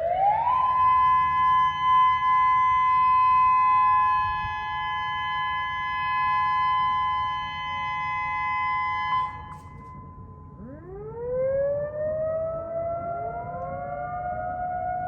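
Outdoor warning sirens sounding for a scheduled test. A siren rises quickly to a steady high two-note tone and holds it, then stops about nine seconds in. About a second later, sirens wind up again in several slowly rising glides and settle on a lower steady tone.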